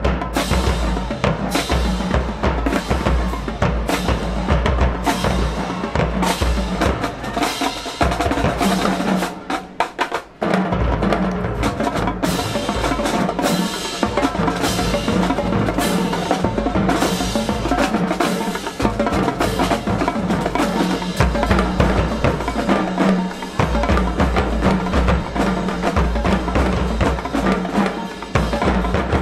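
Marching band drumline playing a loud percussion feature of snare drums, bass drums and rolls, with a brief break about ten seconds in.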